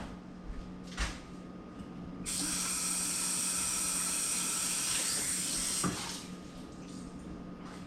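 Kitchen tap turned on and running in a steady hiss for about three and a half seconds, then shut off, with a small click just before it stops.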